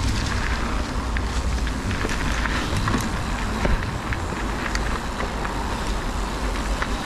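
Fezzari Cascade Peak mountain bike rolling along a dirt trail: steady tyre and trail noise with a heavy low rumble of wind on the microphone, and scattered sharp clicks and rattles from the bike.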